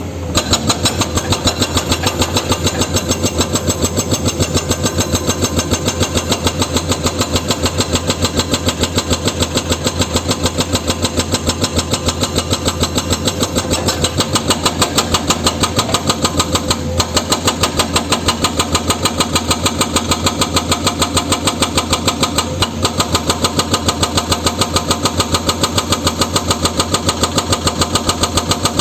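Excavator's diesel engine running steadily, with an even, rapid pulsing of about four to five beats a second.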